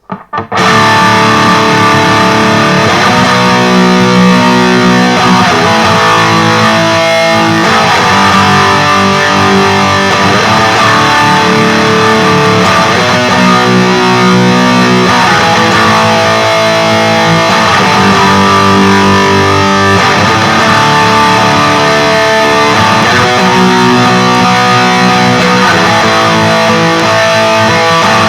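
LTD Deluxe electric guitar with active pickups played through a Peavey Vypyr 15 modelling amp on its XXX high-gain amp model: a distorted riff of held chords that change every second or two in a repeating pattern, starting about half a second in.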